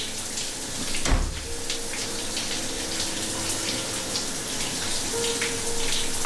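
Shower running steadily, a constant hiss of spraying water, with one dull thump about a second in.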